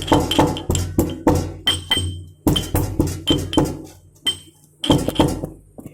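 Black peppercorns and cardamom pods being pounded with a pestle in a mortar: sharp clinking strikes, about three a second, with a couple of short pauses.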